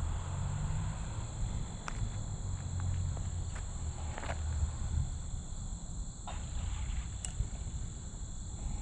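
Steady, high insect buzzing over a low rumble, with a few faint clicks or steps.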